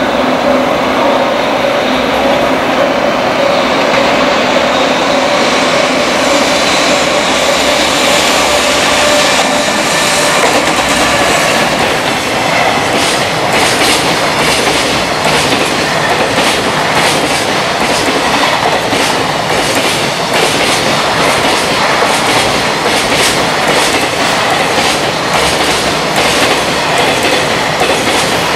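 A long freight train passing at speed: a steady hum as the electric locomotive approaches, then from about ten seconds in a rapid, even clatter of container wagons' wheels over rail joints.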